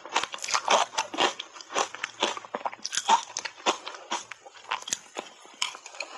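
Close-up crunching of dry shaved ice dusted with matcha powder being bitten and chewed, sharp irregular crunches about twice a second.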